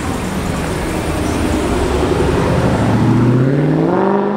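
Car engines in street traffic: a deep, steady engine rumble from a car crossing close by, then an engine revving up with rising pitch near the end.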